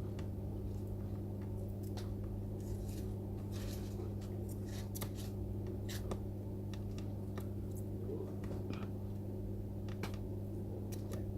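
Steady low electrical hum at the soldering bench, with faint, scattered light ticks and taps of small tools working on a circuit board.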